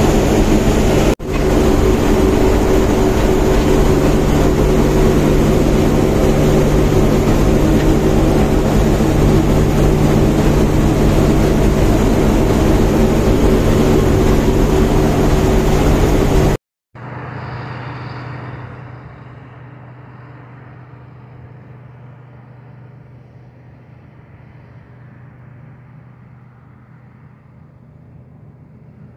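Combine harvester's engine and threshing machinery running steadily and loud, heard inside its cab while the unloading auger pours oats into a trailer; the sound drops out for an instant about a second in. About halfway through it cuts to a much quieter steady engine drone.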